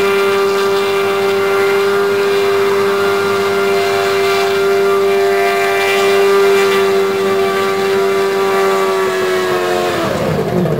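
Martin Jetpack's two-stroke V4 petrol engine driving its twin ducted fans, running with a steady whine while the machine hovers. Near the end the pitch falls as it is throttled back on touching down.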